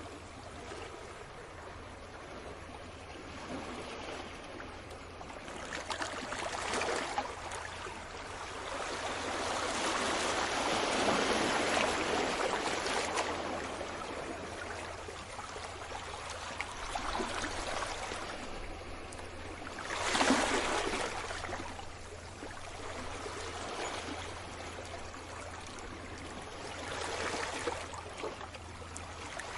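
Small sea waves washing onto the shore at night, the wash swelling and fading every few seconds, with a longer surge in the first half and a sharper splash about two-thirds of the way through.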